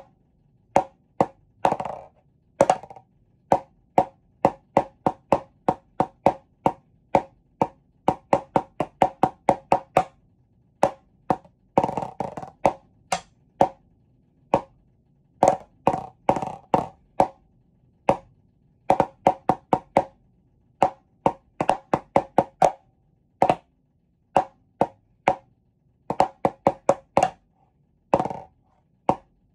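Wooden drumsticks striking a hard percussion surface in a composed rhythm. Runs of quick, sharp strokes alternate with short pauses, and a few brief rolls stand out louder.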